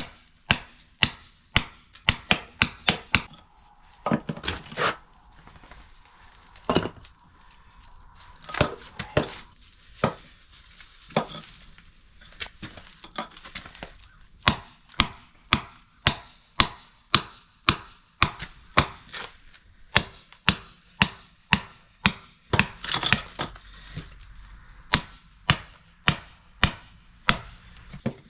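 Repeated sharp hammer blows, sparse and uneven at first, then a steady run of about one and a half strikes a second, knocking at a part that is stuck fast and hard to get out.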